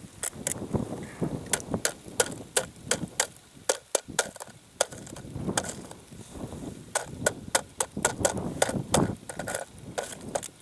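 Footsteps crunching through snow on lake ice, quick steady steps of someone walking briskly to a tripped tip-up.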